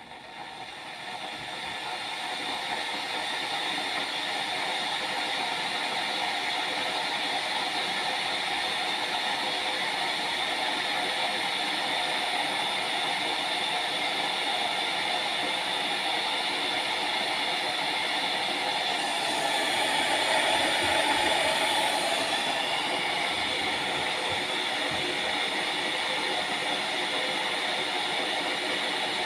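Scarlett SC-EK27G12 electric kettle heating water: a hissing rush that rises over the first few seconds, then holds steady, swelling briefly about two-thirds of the way through.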